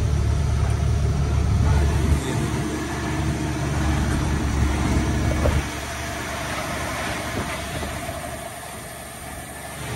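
Truck engine and road noise heard from inside the cab while driving at speed on a highway. The low rumble drops away sharply about two seconds in and again past halfway, leaving a lighter running noise.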